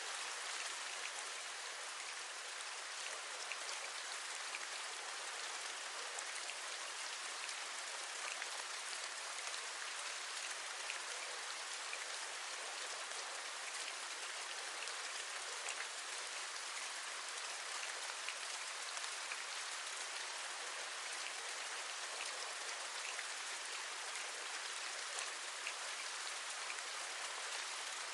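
Steady rain falling, with many small raindrop taps scattered through an even hiss.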